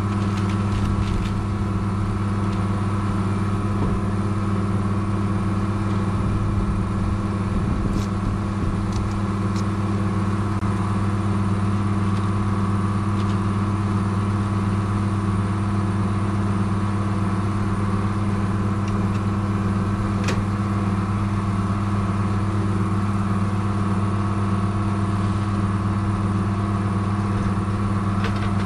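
A motor running steadily with a low, even hum that does not change, with a few light clicks over it.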